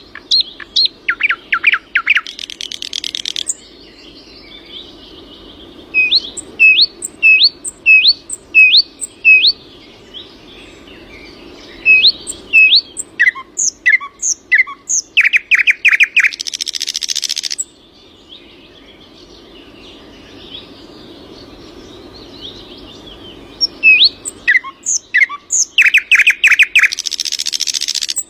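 A songbird singing in three long phrases: a run of short rising whistled notes, then a fast trill and a hissing, buzzy close. There are pauses of several seconds between phrases, and the last phrase is cut off at the end.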